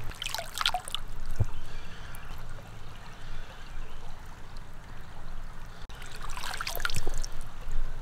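Shallow creek water trickling and splashing around a landing net held in the water. There are short splashes in the first second and again near the end.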